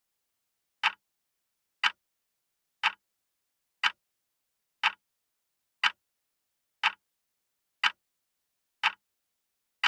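Countdown timer ticking sound effect: short, sharp ticks, one each second, about ten in all.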